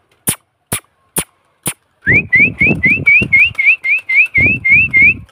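Pigeon keeper calling his flock down. Sharp clicks come about two a second for the first second and a half. From about two seconds in, a quick run of about a dozen short rising whistles follows, about four a second.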